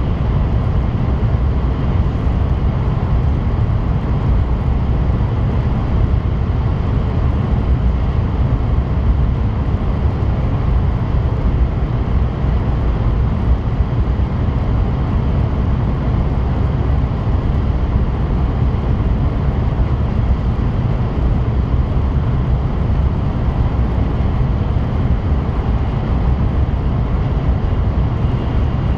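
Steady running noise of an N700S Shinkansen at speed, heard inside the passenger cabin: an even low rumble with a fainter hiss above it.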